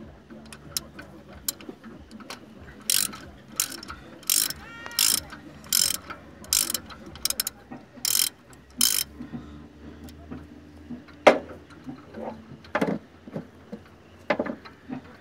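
Ratchet wrench with a spark plug socket clicking in short bursts, roughly one burst every 0.7 s, as the spark plugs are unscrewed. A few single sharp knocks follow near the end.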